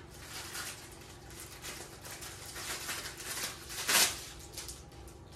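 Thin plastic packaging crinkling and rustling as a small bag is handled and opened by hand, in a run of quick crackles with one louder crackle about four seconds in.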